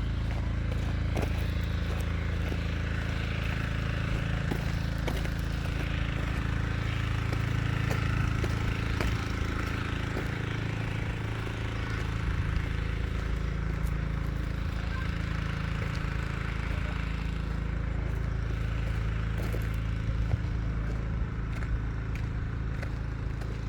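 A vehicle engine running steadily, a low even drone, with scattered small clicks and knocks.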